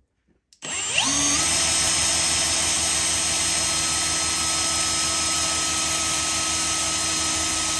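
Cordless drill spinning a stepper motor that is being used as a generator, delivering current into an ammeter. The drill starts about half a second in, winds up to speed within a second, then runs at a steady speed with a steady whine.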